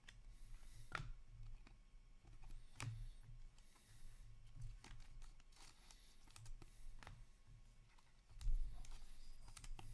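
Hockey trading cards handled and sorted into stacks on a table: light clicks and rustles of card stock, with a low thump about eight and a half seconds in.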